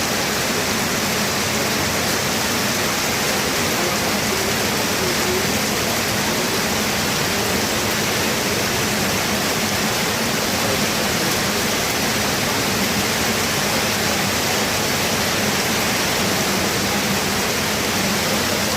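Rain falling steadily, a dense even hiss that neither swells nor breaks.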